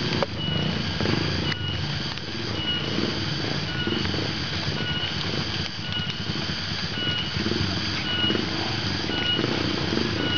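Trail motorcycle engines running at a distance, under a short high chirp that repeats evenly a little under once a second.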